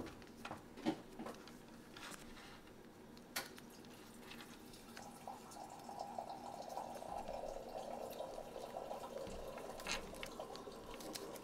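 Small sheet of origami paper handled and folded by hand on a tabletop: a few soft clicks and crinkles, then several seconds of steady soft rasping from about five seconds in as the folds are worked, and a sharper click near the end.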